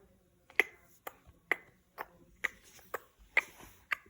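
Small plastic toys tapping against a hard surface in an even series of eight sharp clicks, about two a second.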